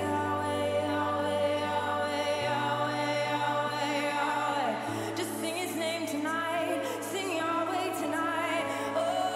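Slow live worship music: held chords over a sustained bass note that shifts twice, with voices singing long, wavering lines over it.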